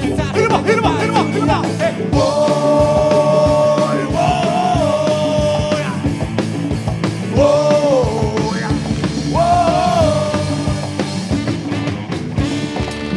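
A live band playing an upbeat song: electric bass, guitars and drum kit, with a melody of long held notes that bend at their ends.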